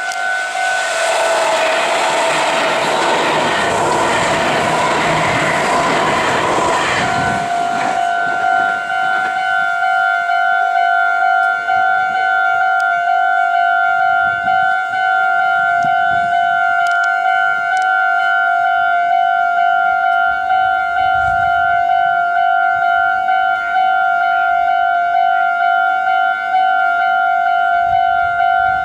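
Railway level-crossing alarm ringing steadily, while an electric train rushes past for the first seven seconds or so and then is gone, leaving the alarm ringing alone.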